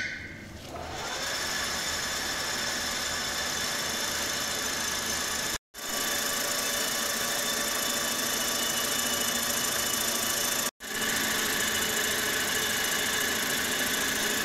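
Awaisia metal lathe starting up and running steadily, spinning a cast workpiece in a four-jaw chuck while the cutting tool turns it and throws off chips. The sound builds over the first second or so, then holds level, with two brief gaps.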